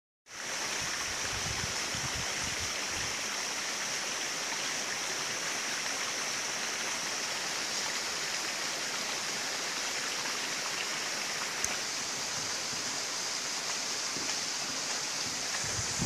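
Steady outdoor ambience: an even rushing hiss, with a higher steady band on top, and one brief click a little past the middle.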